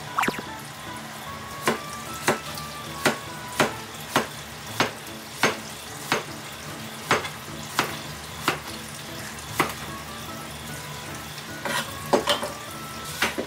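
Kitchen knife slicing a cucumber on a cutting board: sharp chops roughly every 0.6 seconds, a quicker run of cuts about twelve seconds in. Soft background music underneath.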